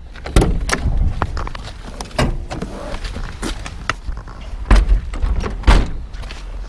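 A series of knocks and thumps, two louder ones about a second apart near the end, over a steady low rumble of wind on the microphone.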